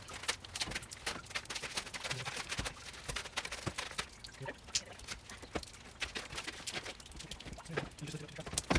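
Irregular knocks and taps as a folding bed platform is handled and slid into the back of a car, busiest in the first second or two.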